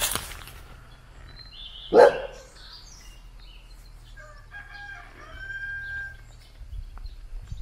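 A dog barks once about two seconds in. Later a rooster crows, one drawn-out call lasting over a second.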